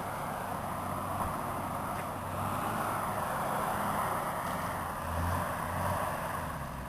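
Suzuki Samurai engine running under load on an off-road climb, with a steady drone that swells briefly about five seconds in.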